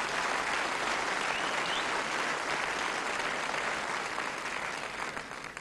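A concert audience applauding steadily, with a brief rising whistle from the crowd about a second and a half in. The clapping eases slightly near the end.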